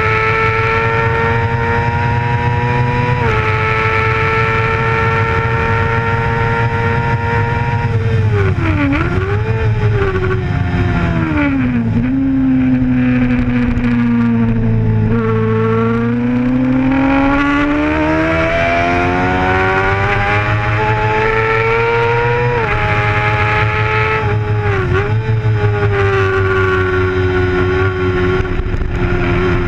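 A racing sport bike's engine heard from on board at high revs: it holds steady, then its pitch drops sharply twice as the rider brakes and downshifts, stays low through a slow corner, and climbs back up through the gears before two more brief drops near the end.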